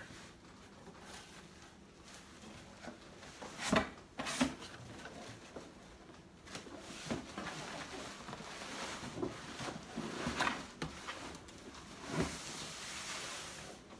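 A cardboard box being opened and its packaging handled: scattered short knocks, scrapes and rustles over a faint hiss.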